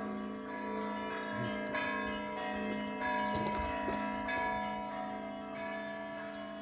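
Orthodox church bells ringing a peal: several bells struck one after another, with new strikes every second or so, their tones overlapping and ringing on.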